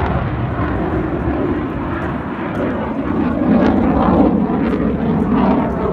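F-16 fighter jet roaring as it flies overhead, a loud, continuous jet rumble that eases slightly a couple of seconds in and swells again after about four seconds.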